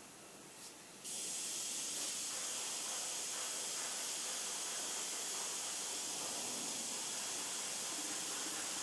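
A steady hiss that starts suddenly about a second in and holds level throughout.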